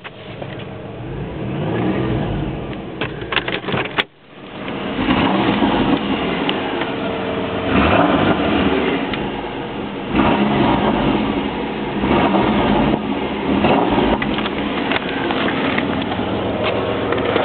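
1994 Chevrolet Cavalier Z24's 3.1-litre V6 running and being revved, its pitch and loudness rising and falling in steps, with a brief break about four seconds in.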